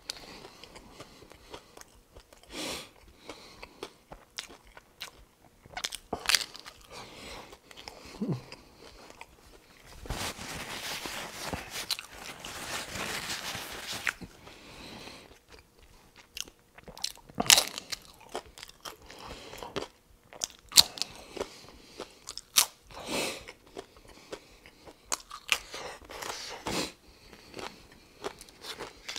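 Crisp hard-shell corn taco shells being bitten and chewed close to a clip-on microphone: scattered sharp crunches and wet chewing. About ten seconds in comes a few seconds of rough rustling noise as a paper napkin is rubbed against the face.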